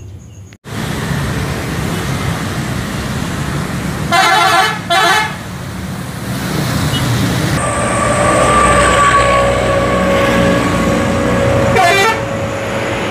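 Bus engine and road traffic noise, with two short horn blasts about four seconds in and another brief blast near the end.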